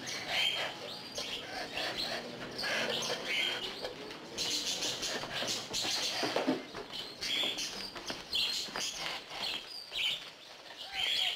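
Many caged songbirds chirping and twittering together, a dense, busy chatter of short high calls overlapping throughout.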